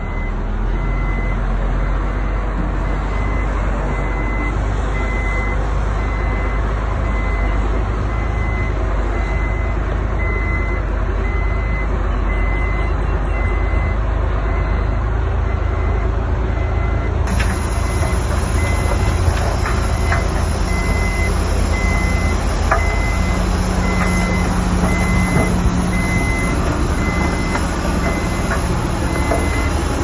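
Heavy diesel construction machine running steadily, with its reversing alarm beeping at an even pace, roughly once a second. A few faint clanks come in the second half.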